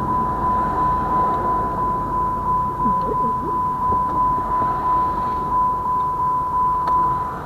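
Railroad grade-crossing bell ringing steadily, about three strikes a second, over a low rumble of a train or traffic.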